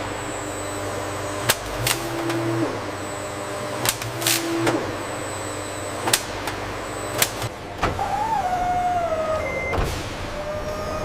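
Bottling-line machinery running: sharp metallic clanks at irregular intervals, with short motor whines. A higher, wavering whine comes in about eight seconds in.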